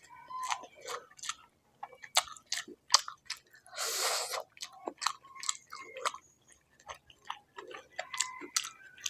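A person chewing pork fat and rice close to the microphone, with quick wet clicks and smacks of the mouth and one longer noisy sound about four seconds in.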